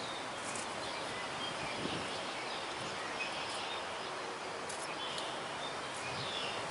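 Outdoor ambience: a steady hiss of background noise with a few faint bird chirps.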